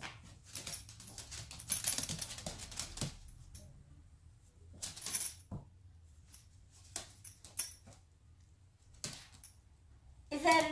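Irregular light clicks and scratches on a hard floor from a small dog scrambling about in play, busiest in the first few seconds and then only a few scattered taps.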